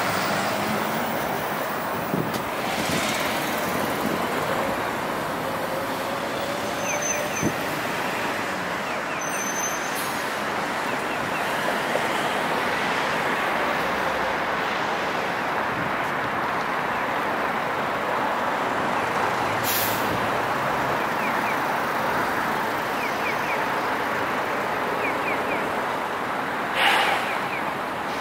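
Steady city street traffic noise of road vehicles running past, with a few short clicks and a brief louder hiss near the end.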